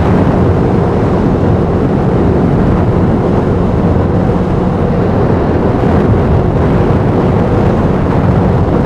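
Steady ride noise from a Yamaha Fino 125 scooter at cruising speed: its engine running evenly under a rush of wind on the microphone.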